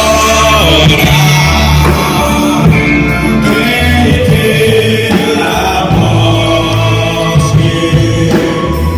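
Live gospel band playing a song with singing, a bass line stepping between held notes under sustained chords.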